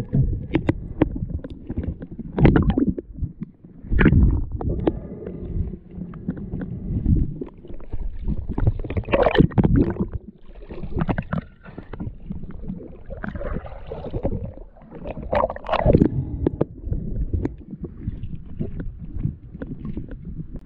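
Water sloshing and gurgling around a diver's camera as it moves underwater and at the surface, a steady low rumble with louder surges of bubbling every few seconds.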